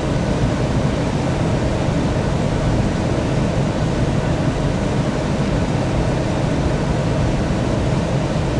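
Steady jet airliner noise: an even, unchanging rush with a low rumble and faint steady tones underneath.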